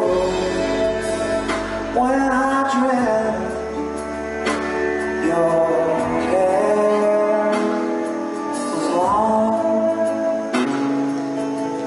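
Live acoustic folk song: a man's voice sings long notes that slide in pitch, over acoustic guitar.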